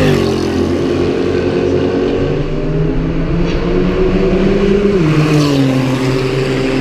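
Performance car engine accelerating hard. Its pitch climbs, then drops sharply at an upshift about five seconds in, before pulling again.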